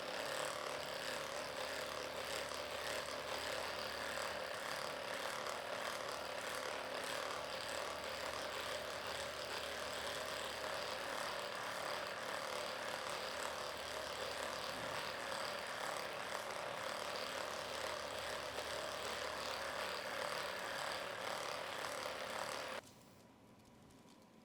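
Electric handheld massage gun running steadily with a motor buzz while pressed on tight muscles; it switches off abruptly near the end.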